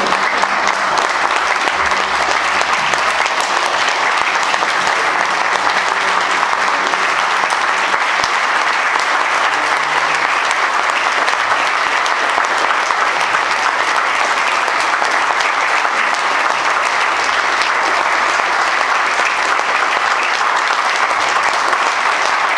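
A roomful of people applauding steadily, many hands clapping at an even level.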